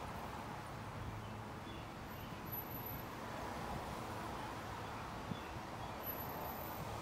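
Freight train of tank cars rolling steadily across a girder bridge, an even noise of wheels on rail, with a few faint high chirps.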